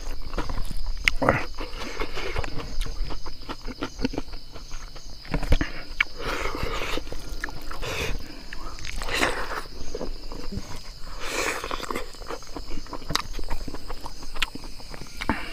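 Close-up eating sounds: a person chewing and smacking on a mouthful, with many small wet clicks and a few louder mouth noises, over a steady high-pitched insect drone.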